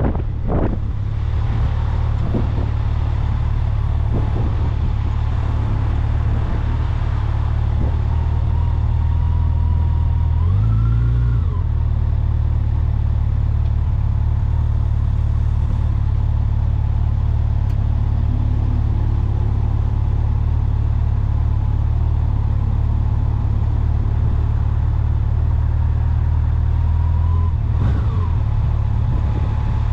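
Engine and road noise of a moving vehicle on the go, running steadily. The engine pitch rises briefly about eleven seconds in and shifts again near the end.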